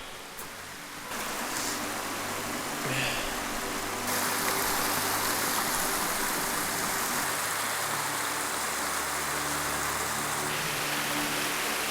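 Waterfall rushing: a steady hiss of falling water that gets louder in steps about a second in and again about four seconds in.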